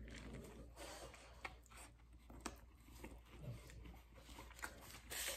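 Faint chewing of a mouthful of breakfast burrito, with a few soft mouth clicks.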